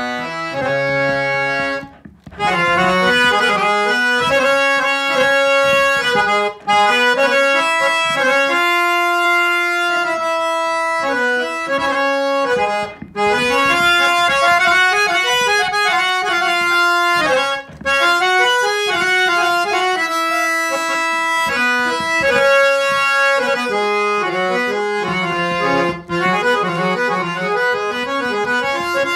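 Hand-pumped harmonium with German Jubilet reeds being played: phrases of held notes in a melody, broken by a few short gaps.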